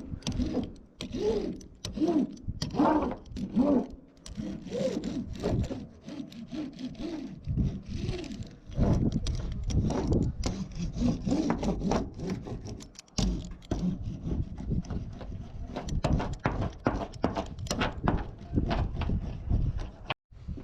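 Repeated hand-driven scraping and rubbing strokes on a hard surface, uneven in pace, with sharp clicks among them.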